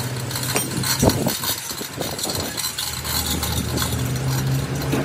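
Steady low machine hum with a few metal clanks and knocks, the loudest about a second in, as a truck axle housing hanging from a chain hoist is shifted by hand. The hum grows stronger near the end.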